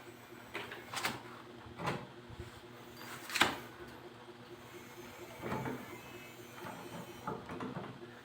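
A series of irregular knocks and scrapes from wood being handled and worked, the sharpest knock about three and a half seconds in, over a faint steady hum.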